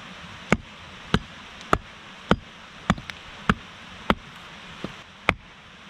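A hatchet chopping short logs: nine sharp, evenly spaced strikes about every 0.6 s, one fainter near the end.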